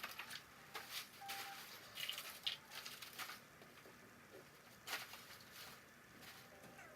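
Faint, scattered clicks and light knocks of household things being handled and set down, with a brief clink about two and a half seconds in.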